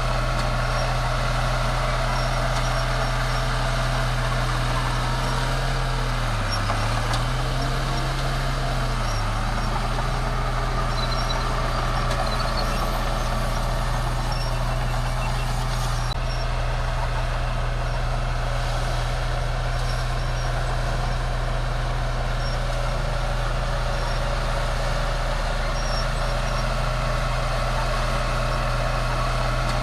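Bulldozer's diesel engine running steadily under work, its note dipping briefly twice about a third of the way in before recovering.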